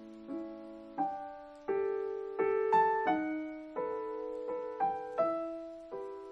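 Background piano music: single notes and small chords played one after another at an unhurried pace, each ringing and fading.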